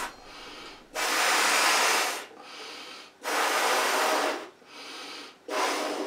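A person blowing up a party balloon by mouth: three long puffs of breath into the balloon, with quieter breaths drawn in between.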